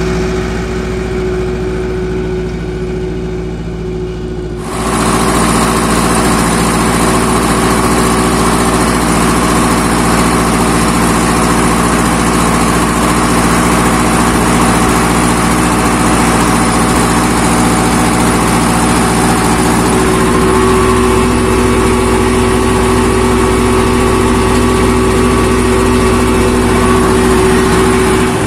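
Ursus C-360 tractor's four-cylinder diesel engine running steadily while ploughing. About five seconds in, the sound jumps louder and fuller as it is heard from inside the cab.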